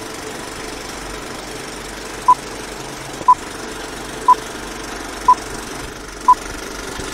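Film leader countdown sound effect: a steady hiss and rattle like a running film projector, with a short high beep once a second, five beeps starting about two seconds in.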